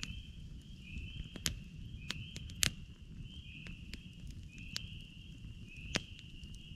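Spring peepers calling: short rising peeps, about one a second. Over them a campfire crackles with sharp pops, the loudest about two and a half seconds in and again about six seconds in.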